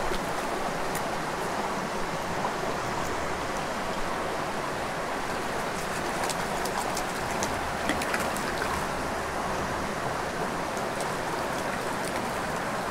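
Steady flow of a creek with scattered small splashes as a hooked trout thrashes at the surface of the pool.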